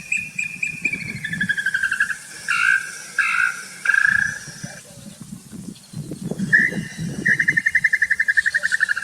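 A bird calling with long series of rapid whistled notes: the first series slides down in pitch over the first two seconds, a few longer notes follow, and a fast even series runs from about two-thirds of the way in. Low rumbling sounds come and go beneath it.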